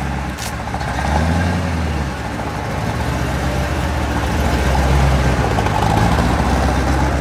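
Mid-engine V8 of a custom truck built on a 1961 Volkswagen cab, running as the truck pulls away. The engine note rises and falls about a second in, then runs steadily.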